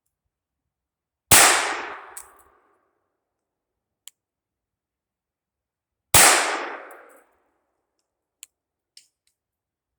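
Two shots from a Walther P22 .22 LR pistol, about five seconds apart, each followed by a tail that dies away over about a second. A few faint clicks fall between and after the shots.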